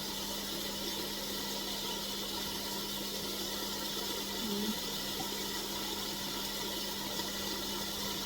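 Cola fizzing and bubbling in a pan over chicken wings, a steady hiss as the carbonation settles, with a steady low hum underneath.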